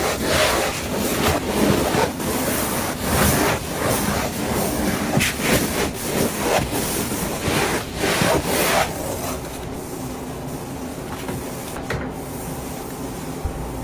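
Repeated scrubbing strokes on a hard surface, about one or two a second, which stop about nine seconds in and leave a steady, quieter background noise.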